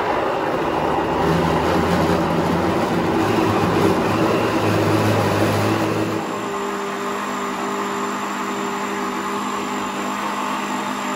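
Countertop blender motor running at full speed, chopping corn kernels in water into a purée; its low sound shifts as the load changes. About six seconds in it changes to a steadier, even hum.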